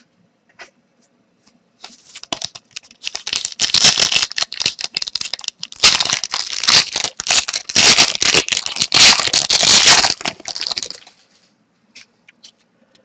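Crinkling and rustling of a trading-card pack wrapper being handled and torn open, a dense crackle that starts about two seconds in, is loudest in the middle and stops a couple of seconds before the end.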